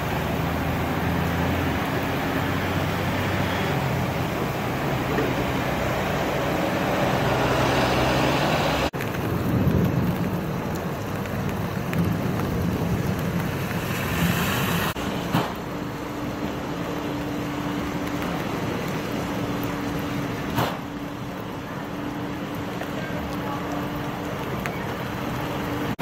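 Heavy rain pouring onto pavement in high wind, over the steady low hum of vehicle engines running. The sound changes abruptly about nine and fifteen seconds in, and there is one short knock about twenty seconds in.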